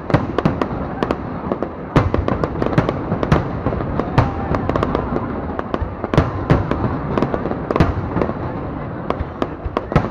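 Aerial fireworks exploding: a rapid, irregular string of sharp bangs, several a second at times, over a constant noisy din.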